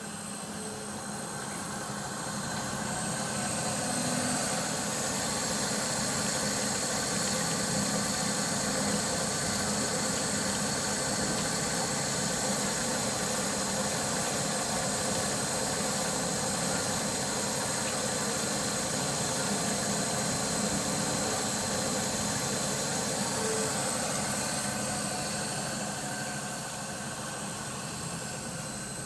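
3-axis CNC stone pantograph running: a steady high whine over a steady hum. It grows louder over the first few seconds, holds steady, and eases off near the end.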